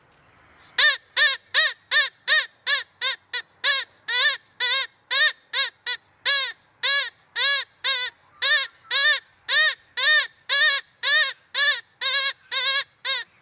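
An animal calling over and over: short, loud, pitched calls about two a second, each rising and then falling in pitch.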